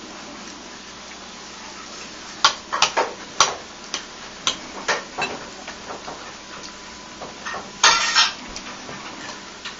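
Cutlery clinking and tapping against a plate as a small child eats. Sharp, irregular clinks start about two and a half seconds in, with a brief louder clatter near the end.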